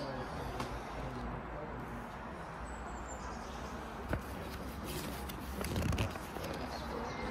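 Outdoor background noise with voices in the background and a bird chirping, and a single knock just after four seconds.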